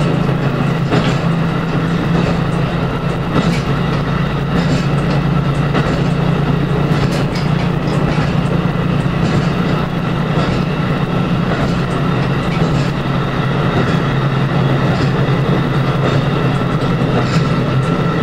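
Diesel train running steadily along the line, heard from inside the driver's cab: a constant low engine drone over the rumble of the wheels, with a sharp click from the wheels on the rail now and then.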